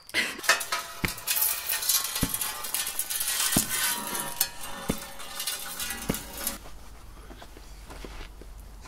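Horror-film suspense sound design: a harsh, crackling metallic scraping texture with a low thump about every 1.2 seconds, five in all. It cuts off about six and a half seconds in, leaving a low hum.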